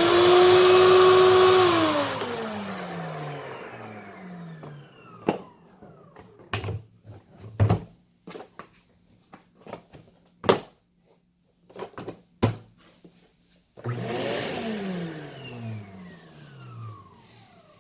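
Ridgid WD14500 wet/dry shop vac motor running at full speed for about a second and a half, then switched off and winding down with a steadily falling pitch. A few scattered clicks and knocks follow, then the vac is switched on again briefly near the end and winds down the same way.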